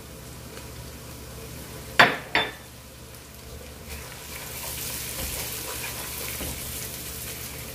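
Chopped green bell pepper frying in oil with onions, garlic and ginger in a pot, stirred with a wooden spoon; the sizzle grows louder from about four seconds in. Two sharp knocks about two seconds in.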